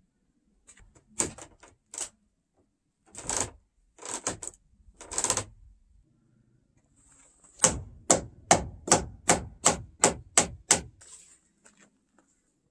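Hammer blows during timber door-frame carpentry: a few scattered knocks, then a quick, even run of about nine strikes, roughly three a second, in the second half.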